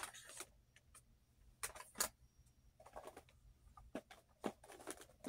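Faint clicks and knocks of small plastic makeup cases and compacts being handled and set down, a few scattered over the seconds with brief rustling between.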